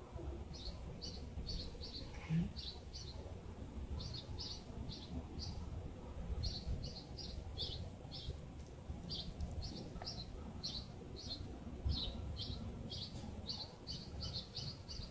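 A small bird chirping repeatedly in quick runs of short, high notes, with brief pauses between runs, over a steady low background rumble.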